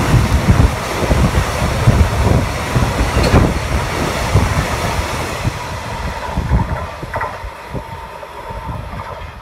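Freight train of tank wagons passing close by: a heavy rumble of wheels on rails with scattered knocks. It grows fainter over the last few seconds as the end of the train pulls away.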